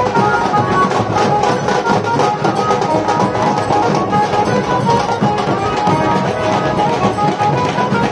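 Loud, unbroken procession music: a street drum band beating a steady rhythm, with a melody of held notes over it.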